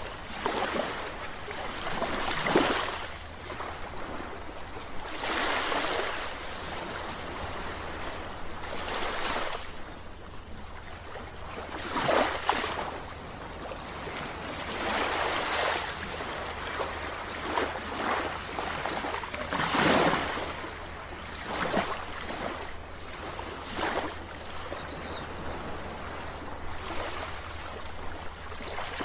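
Sea waves breaking on a beach, each surge of surf swelling up and washing back every few seconds, over a steady low rumble.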